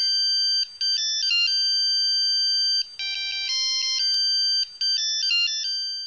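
Intro jingle: an electronic ringtone-style melody of high beeping tones, its phrase starting again about three seconds in, fading out at the end.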